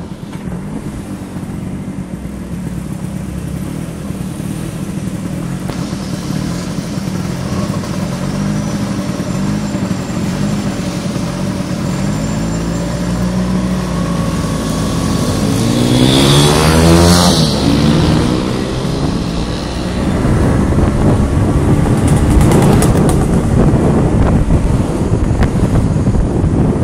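Vespa scooter engine running on the move, its pitch rising and falling through the middle as the scooter speeds up and slows, loudest about two-thirds of the way in, with a rushing noise over it.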